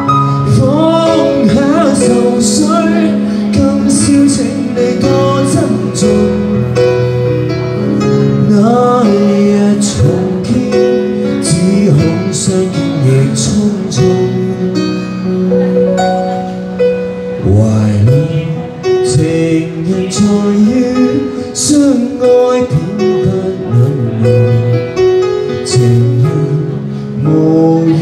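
A singer's voice through a microphone, singing a Chinese-language song while accompanying himself on a Roland XV-88 keyboard, with held chords and notes under the melody.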